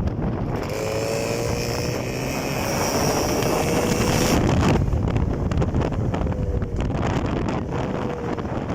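Jawa 350 two-stroke twin motorcycle engine and exhaust running under way, its pitch climbing steadily as it accelerates for about four seconds, then easing off. Wind on the microphone.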